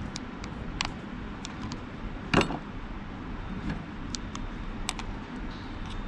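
Steel pliers and side cutters clicking against each other and against wire as they are worked by hand, with one sharp snap about two and a half seconds in. A steady low hum runs underneath.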